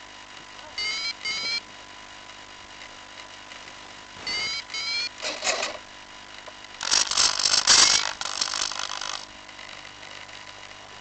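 Short electronic double beeps from the downed FPV plane, twice, and from about five seconds in the plane's electric motor spins up in short bursts, loudest around eight seconds, drawing current while the plane lies in the grass.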